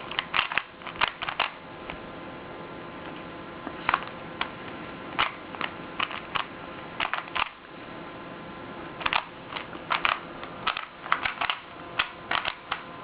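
Plastic Rubik's Cube being turned quickly by hand: irregular clicks and clacks of its layers snapping round, in quick runs with short pauses. The owner says the cube needs oiling.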